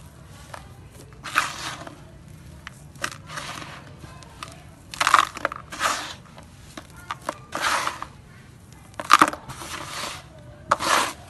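Dry, dusty grey sand being crumbled and squeezed by hand: a run of about eight gritty crunches, each lasting about half a second to a second, with sand sifting through the fingers.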